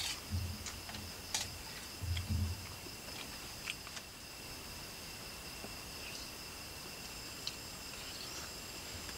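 A steady chorus of night insects trilling at a constant high pitch. In the first four seconds a few light clicks and soft low thumps come from eating with a spoon from a plate.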